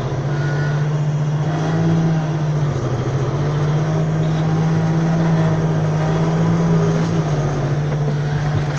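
Tractor's diesel engine running steadily under way, its note rising and dropping slightly a few times as the revs change.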